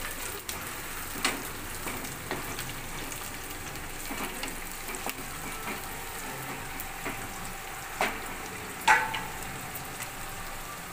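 Sliced onions with coriander and mint sizzling in hot oil in a pan, with a steady frying hiss. A utensil stirring the mix knocks against the pan a few times, the loudest with a brief ring about nine seconds in.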